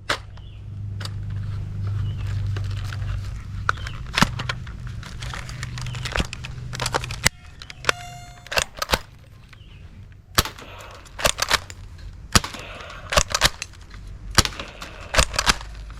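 Toy M60 machine gun being handled and fired: a scatter of sharp clicks and snaps, bunching into quick runs in the second half. A low hum runs under the first few seconds, and a short pitched tone sounds about eight seconds in.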